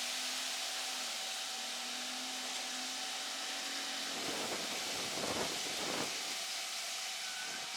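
Stick-welding arc crackling and hissing steadily, with a few louder surges a little past halfway.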